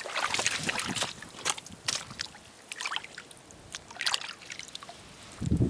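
Irregular crunching and rustling with small wet trickling sounds, as of footsteps and hands working over wet sand and seaweed on the shore; a low thump near the end.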